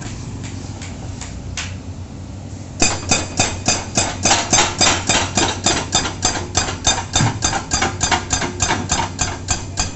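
Low engine rumble from traffic and idling machinery, then about three seconds in an excavator-mounted hydraulic breaker starts hammering concrete pavement, a steady run of sharp blows at about four to five a second.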